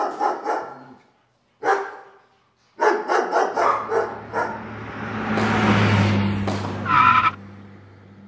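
A dog barking in quick runs, then a car engine with a swelling rush of noise over several seconds, and a short high-pitched tone near the end.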